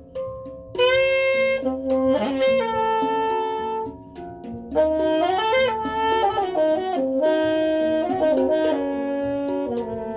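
Saxophone improvising in jazz style, with held notes and quick bending runs, over the struck, ringing notes of a hang drum. The saxophone enters about a second in, pauses briefly near the middle, then plays busier wavering lines.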